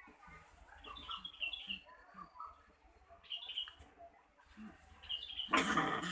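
Angry rat calling: a few short high chirping squeaks, then about five and a half seconds in a loud, harsh, noisy growling squeal breaks out and keeps going.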